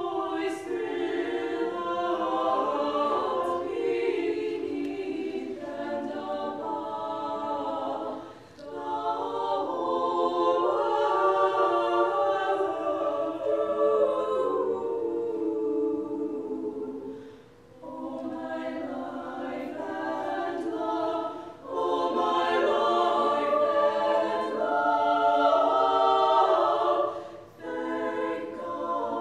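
Small choir of female voices singing a cappella in several parts, in long phrases with short breaks between them.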